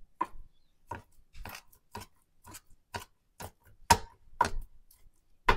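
Knife chopping cooked sausage on a cutting board: a steady series of sharp taps, about two a second, the strongest a little before four seconds in.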